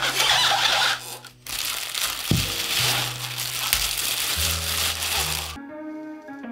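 Plastic packaging bags crinkling and rustling as they are pulled off a pair of bookshelf speakers, over background music with a steady bass line. Near the end the crinkling cuts off suddenly, leaving only the music.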